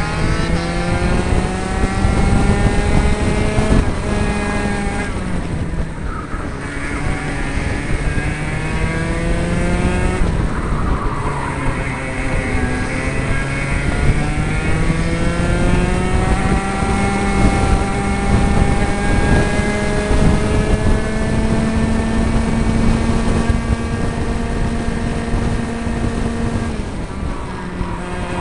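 A 60 Mini kart's 60cc two-stroke engine, heard onboard at racing speed. It revs up through the straights in three long climbs, and its pitch drops sharply each time the driver lifts off for a corner, about four seconds in, again around ten seconds, and near the end.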